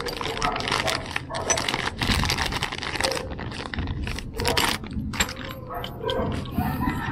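A clear plastic bag crinkling as it is handled, with the metal locking ring and small parts of an e-bike mid-drive motor clinking inside it.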